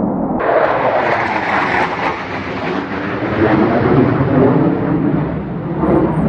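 Twin turbofan engines of a low-flying McDonnell Douglas F-15 Eagle fighter jet: a loud, continuous rumble that turns harsher about half a second in. The recording is slowed down with the footage, so the roar is drawn out and deepened.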